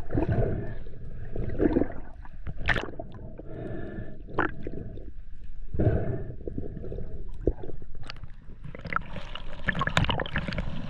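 Underwater water noise: gurgling and bubbling with scattered clicks and knocks as the spearfisher swims and hauls on the line. From about nine seconds in, a denser crackle of bubbles and splashing comes in as the camera nears the surface.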